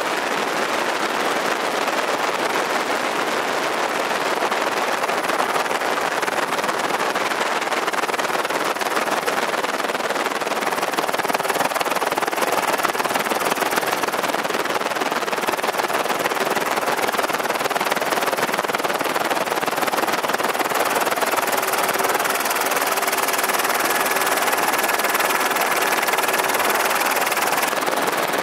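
Steady, loud rotor noise of an aircraft in flight, heard from on board, with a faint steady tone joining in over the last few seconds.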